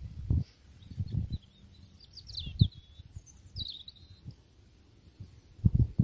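Small birds chirping, two quick runs of short high calls in the middle, over irregular low gusts of wind buffeting the microphone, strongest near the start, about two and a half seconds in, and near the end.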